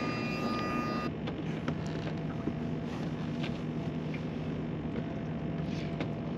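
A boat motor humming steadily at a low pitch, with a few faint clicks.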